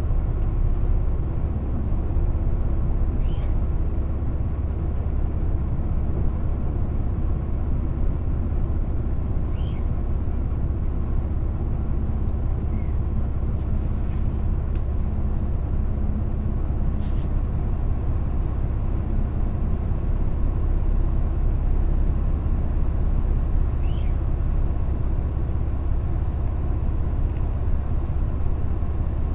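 Passenger train running along the track, heard from inside the carriage: a steady low rumble of wheels and running gear, with a few brief, faint high squeaks.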